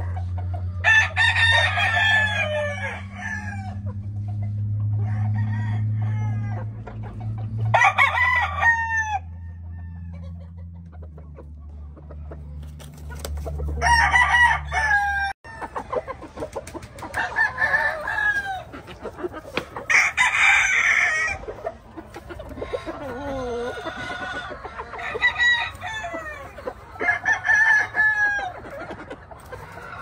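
Game roosters crowing in turn, a crow every five or six seconds, with clucking and other chicken calls in between. A low steady hum sits under the first half and stops abruptly about halfway through.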